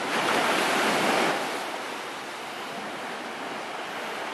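Small waves washing up on a sandy beach: a louder surge for the first second and a half, then a steady, softer wash.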